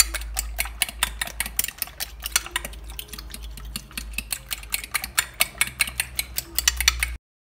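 Metal spoon beating eggs in a bowl: a fast, even run of clicks against the bowl, about seven a second, cutting off suddenly near the end.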